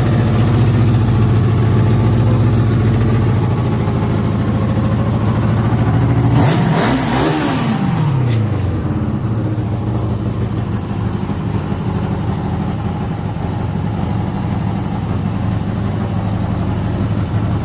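Freshly fitted Honda CBR motorcycle engine running in a buggy after its first start. It idles steadily, is revved up and back down once about six and a half seconds in, then settles back to idle.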